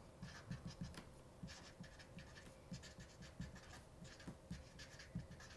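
Felt-tip marker writing on paper: faint, quick scratching strokes as words are written out.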